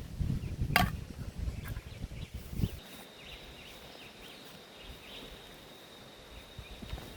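Outdoor natural ambience: low rumbling noise and a single sharp click in the first few seconds, then a steady high insect drone with faint short bird chirps.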